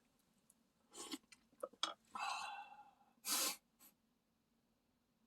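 A person eating: a few light clicks and mouth noises, a longer sound lasting under a second, then a short, sharp breath through the nose or mouth.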